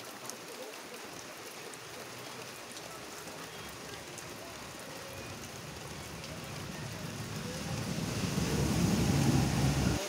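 Steady rain falling on leaves and wet ground. About six seconds in, a low rumble builds up under the rain, is loudest near the end and cuts off suddenly.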